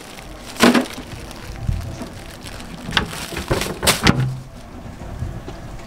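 Steady hiss of heavy rain, broken by a few loud, brief noises: one about half a second in and three close together in the middle.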